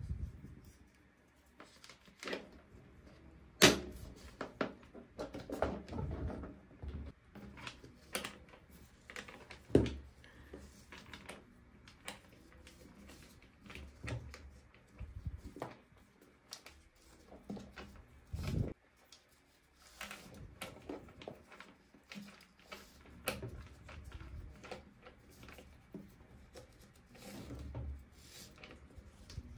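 Small plastic toy pieces and their packaging being handled and set down: irregular clicks, taps and knocks, with two sharper knocks about 4 and 10 seconds in.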